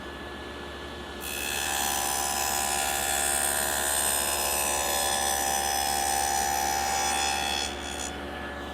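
Table saw with a dado blade stack running, then cutting along the edge of a wooden panel for about six seconds, starting about a second in, before dropping back to the blade's free-spinning hum.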